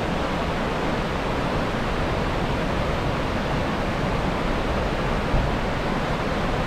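Fast, shallow mountain river rushing over rocks, a steady whitewater rush.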